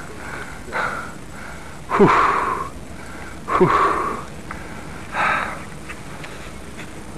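A man breathing hard: four heavy breaths about a second and a half apart, two of them ending in a low falling sigh. He is out of breath.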